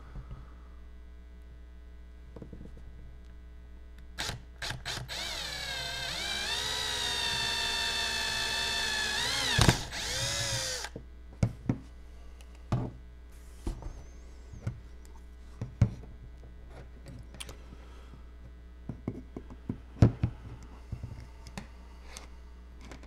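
Cordless drill boring a quarter-inch hole through a PVC compression fitting. A brief blip of the trigger comes first, then about six seconds of steady motor whine, rising as it spins up, with a sharp knock near the end before it cuts off. Light knocks follow as the drill and the fitting are handled and set down.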